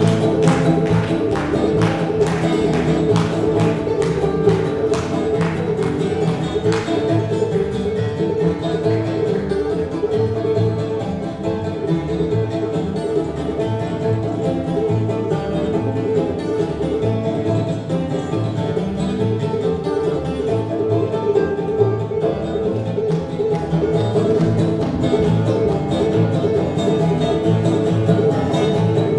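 Old-time string band of banjo, mandolin, acoustic guitar and upright bass playing an instrumental passage of a bluegrass-style tune, with no singing.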